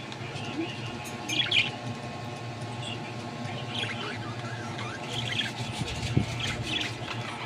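Pet budgerigars chirping in short, scattered calls, over a steady low hum.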